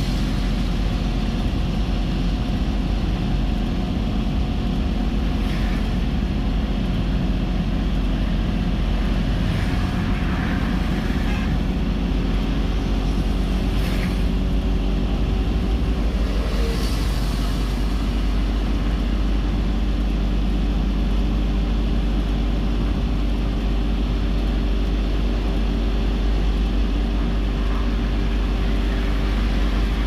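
Steady low rumble of engine and tyres on the road, heard from inside a moving car's cabin. A little past halfway a heavy dump truck passes close alongside, a brief rise in noise.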